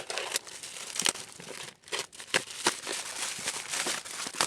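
Plastic packaging crinkling and tearing as a Tamiya Mini 4WD kit is unwrapped by hand, in irregular crackles with sharp clicks.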